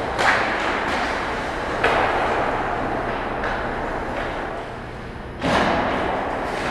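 Ice hockey play on a rink: skates hissing and scraping on the ice, with three sudden sharp sounds, one near the start, one about two seconds in and one near the end.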